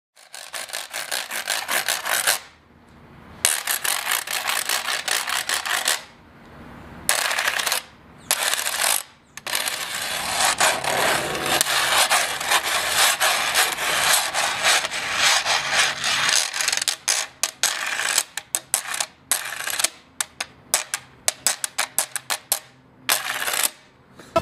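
Metal washboard played with thimbles on the fingertips: fast, rhythmic scraping and tapping across the ridges, in phrases broken by short pauses, then a run of separate sharp taps near the end.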